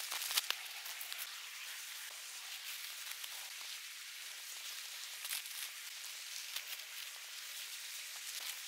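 Nylon tent fabric and poles being handled at speed while the tent is pitched: a steady, high crackling rustle with scattered small clicks.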